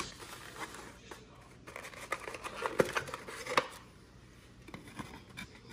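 A foam takeout clamshell container being handled and opened: a run of short sharp clicks and rubbing noises, the loudest two a little past the middle.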